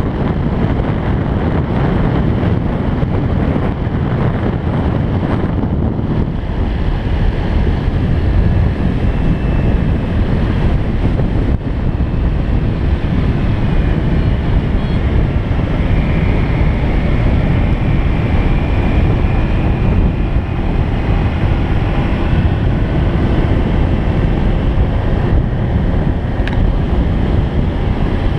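Steady, loud rushing noise of wind on the microphone, heavy in the low end.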